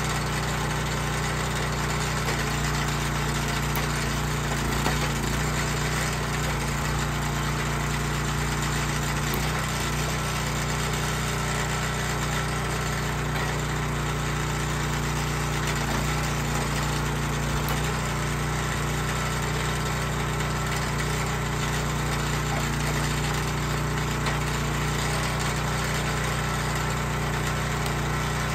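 Small engine of a Dirty Hand Tools vertical hydraulic log splitter running steadily at an even speed while it drives the splitter.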